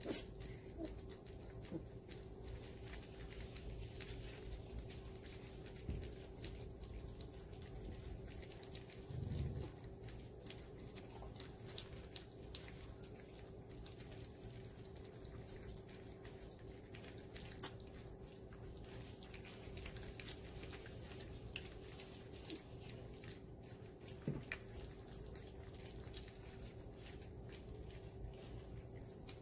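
Four-week-old golden retriever puppies eating soft food from stainless steel pans: faint wet lapping and smacking with many small scattered clicks, over a steady low hum. There is a brief low thump about nine seconds in.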